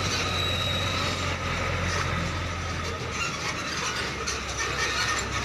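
Container semi-trailer truck's diesel engine running at low speed, with clanking and squeaking from the trailer's running gear; the engine note drops about three seconds in.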